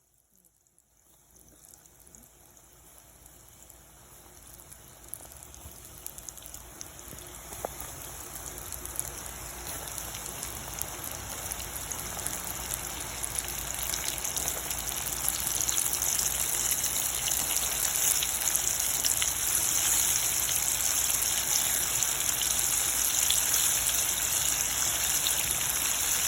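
Chicken pieces coated in breadcrumbs and flour frying in hot oil: a sizzle full of fine crackles that grows steadily louder over about the first fifteen seconds, then holds steady.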